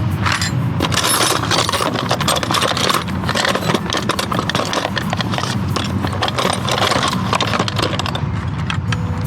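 Continuous clattering of small metal objects: many quick, irregular clinks and rattles over a steady low hum.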